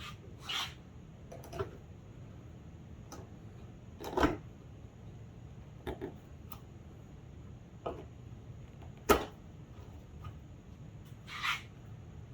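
Stanley carving chisel cutting into red oak: about ten short scrapes and knocks at irregular intervals, the sharpest about nine seconds in.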